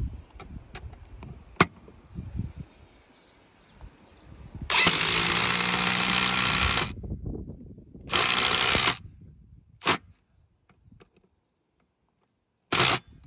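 Milwaukee cordless impact driver driving a T25 Torx wood screw through a stainless roof hook into a timber rafter. It runs for about two seconds, stops, runs again for about a second, then gives two short bursts, the last near the end.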